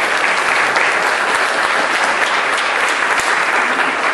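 Audience applauding: loud, dense clapping from many hands, held steady.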